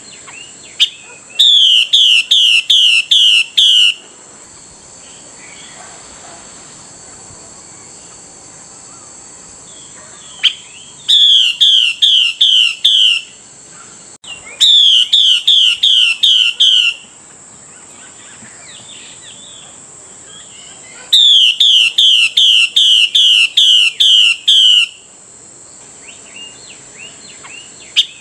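Female Chinese hwamei giving its 'xùy' call, the call a hen uses to summon and rouse a male. It comes as rapid series of loud, downslurred whistled notes, about five a second, in four bouts of two to four seconds, with a steady high-pitched hum underneath.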